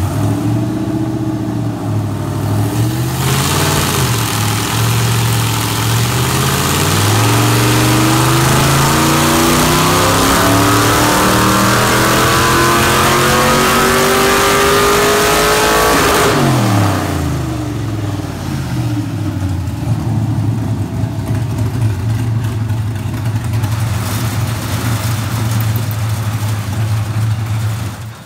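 LQ9 6.0-litre LS V8 with a stage 2 cam and 862 heads, making a full-throttle dynamometer pull. It idles and blips the throttle twice, then revs up with the pitch climbing steadily for about twelve seconds. The pitch drops off suddenly, and the engine settles back to a steady idle.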